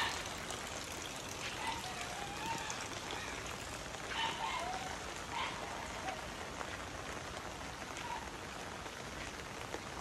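Steady rain falling, pattering on an umbrella and the wet ground, with a few faint short calls in the background.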